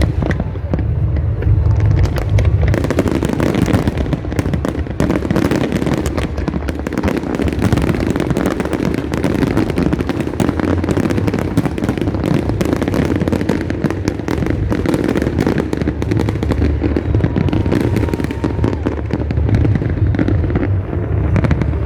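Fireworks display going off continuously: dense rapid crackling over a steady low rumble of booms, thickening into a near-constant crackle a few seconds in.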